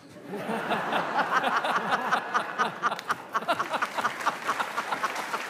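Studio audience laughing at a punchline, building over the first second, with clapping mixed in that settles into steady applause near the end.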